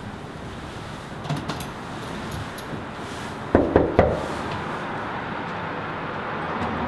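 Three quick knocks on an apartment door, about three and a half seconds in, over steady background noise, with a few faint clicks a little over a second in.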